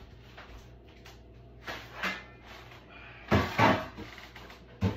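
A few knocks and bumps: a light one about two seconds in, a louder pair about three and a half seconds in, and another just before the end.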